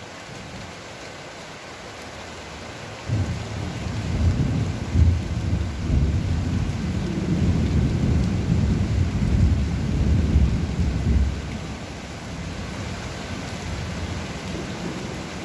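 Thunder rolling over steady rain: a deep rumble breaks in suddenly about three seconds in, swells for some eight seconds and dies away, while rain keeps falling throughout.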